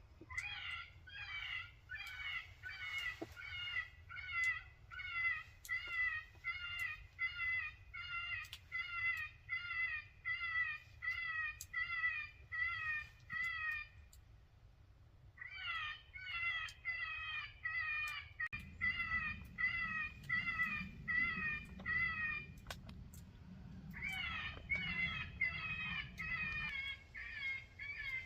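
Electronic predator call playing a cottontail rabbit distress cry: high squealing cries repeated about twice a second, in three long runs with short pauses between.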